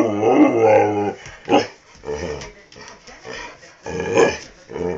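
A dog making drawn-out, wavering 'talking' vocalisations at its owner. One long call bends up and down in pitch through the first second, then several shorter calls follow.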